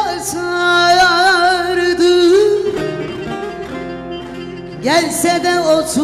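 Turkish folk song sung in long, ornamented phrases with a wavering vibrato over an instrumental backing. A new sung phrase begins about five seconds in.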